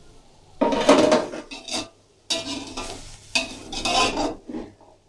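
A metal slotted spatula scraping and stirring chopped vegetables against the inside of an aluminium cooking pot, in three stretches of scraping. The vegetables sizzle underneath now that the added chicken stock has cooked off.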